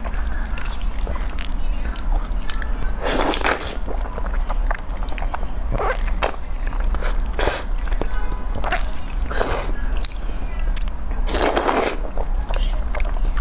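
Spicy noodles slurped into the mouth in several drawn-in sucks, about six in all, the loudest about three seconds in and near the end. A steady low hum runs underneath.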